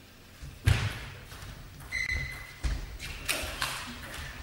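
Table tennis rally in a large hall: the ball knocking off bats and table with sharp clicks, and players' shoes thudding on the floor as they move. The loudest is a heavy thud about two-thirds of a second in, and there is a short ringing ping about two seconds in.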